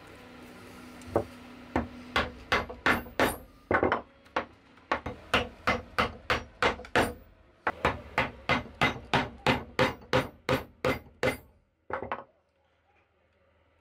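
Steel chisel, a Narex, struck again and again as it chops a notch into a cherry wood bucksaw arm, about three sharp knocks a second. The strikes stop about two seconds before the end.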